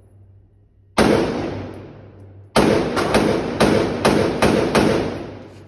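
Pistol shots on an indoor shooting range: a single shot about a second in, then a quick string of about seven shots, each ringing out in the range's echo.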